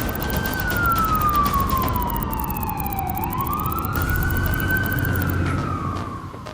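Wailing siren: a slow falling tone that sweeps back up about halfway through and falls again, over a low rumble.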